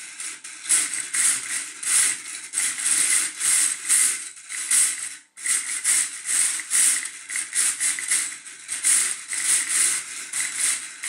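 Small electric motor driving the ball-on-beam's plastic gear train, whirring in surges about twice a second as it tilts the beam back and forth, with a brief break about halfway.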